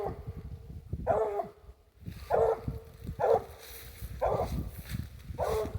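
Squirrel dog barking treed: five short barks about a second apart, the hunting dog's signal that it has a squirrel up the tree.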